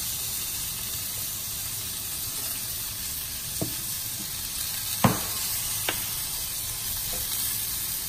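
Thick bone-in cowboy ribeye searing in olive oil in a cast iron pan, with a steady sizzle. Three light knocks come in the middle; the loudest is about five seconds in.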